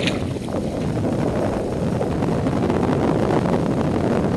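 Wind buffeting the microphone as a steady low rumble, with a brief splash right at the start as a released largemouth bass hits the water and swims off.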